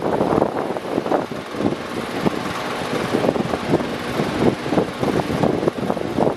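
Electric fan running: a continuous rush of moving air that flutters rapidly and unevenly.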